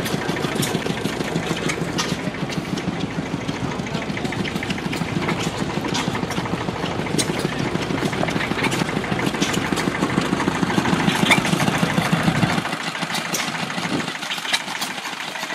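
Antique flywheel-type stationary gas engine running with a steady, rapid chugging and light ticks; the low chugging drops away about thirteen seconds in.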